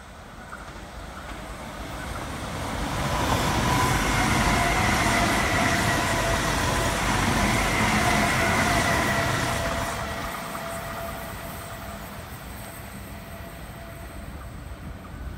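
Sydney Trains Waratah (A set) double-deck electric passenger train passing through the station: a rumble that builds, stays loud for about six seconds with a steady high whine over it, then fades away as the train clears.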